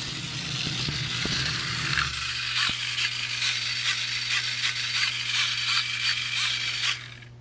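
Small three-wheeled spinning robot's drive motors and servo-steered wheels running with a mechanical rattle. After about two seconds the sound turns into a steady motor hum with regular clicking, a little over two clicks a second, and it fades near the end.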